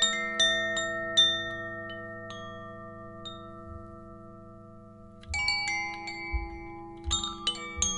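Theta Chime with the Enlighten tuning: its bead strikes the eight tuned metal tines inside the bamboo tube, so that bright notes chime in quick clusters and ring on, overlapping. The strikes thin out and the notes die away in the middle, and a new flurry of strikes comes about five seconds in.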